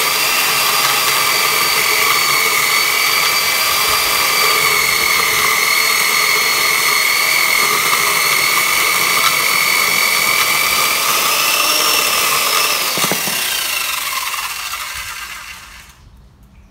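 Zhanhu 2800 W electric chainsaw with a 48 cm bar cutting through a log, a steady high whine. Near the end the pitch rises briefly as the chain comes through the wood, then the motor is let off and winds down to quiet.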